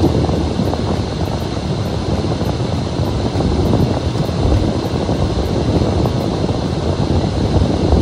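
Steady road noise inside a moving car: a low rumble from the tyres on a snow- and slush-covered street, mixed with the engine.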